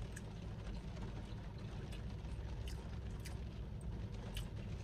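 Background noise inside a car cabin: a steady low hum with a faint hiss, and a few soft isolated ticks.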